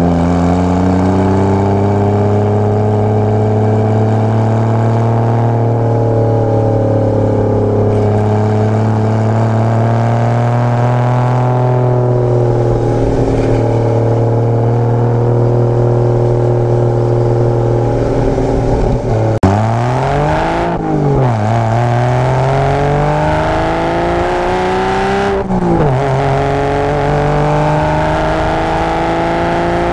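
Porsche Boxster engine with a tuned exhaust, pulling at fairly steady revs under way. About twenty seconds in the revs dip and climb back quickly. They drop sharply again about twenty-five seconds in, as on a gear change.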